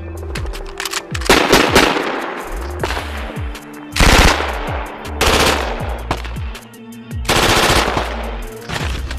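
A light machine gun firing in bursts of automatic fire, four long bursts with scattered single shots between. Background music with a heavy bass runs underneath.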